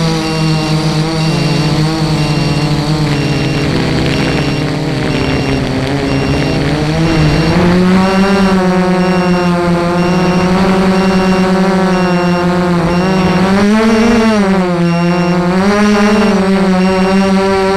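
FPV racing quadcopter's motors whirring in a steady drone. The pitch sags, climbs about seven seconds in, and swells up briefly twice near the end as the throttle changes.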